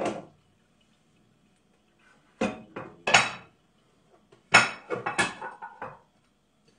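Dishes and cutlery clattering and clinking as they are washed by hand at a sink. There is a clatter at the start, two short bursts of clinks about halfway through, and a longer run of clanking near the end.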